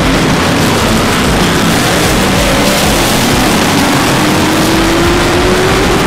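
Off-road race vehicle engine running under a dense steady rush of noise, its pitch climbing steadily over the last two seconds as it accelerates.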